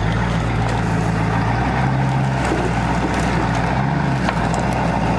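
A vehicle engine running steadily at an even low pitch.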